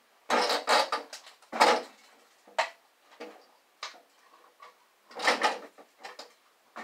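Parts of a CRT monitor being handled while it is taken apart: a few short, rough scraping and rattling bursts in the first two seconds, a sharp click, a few light ticks, then another rattle about five seconds in.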